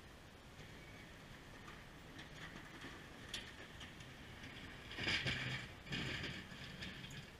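Ford F-150 pickup with a Fisher HT half-ton plow blade approaching and scraping snow across pavement, the scrape building and loudest in two pushes about five and six seconds in. The truck's engine hums low beneath it.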